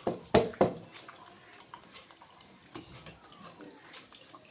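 Eating sounds at a meal: three sharp clicks or smacks in the first second, then faint scattered clicking.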